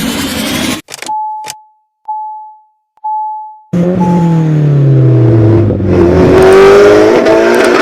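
Edited intro sound effects: three short electronic beeps on one pitch, about a second apart, then a loud vehicle-like sound whose pitch slowly falls, mixed with music.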